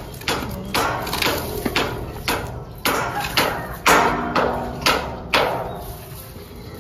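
A steady run of sharp knocks, about two a second, each ringing briefly, which stops about five and a half seconds in.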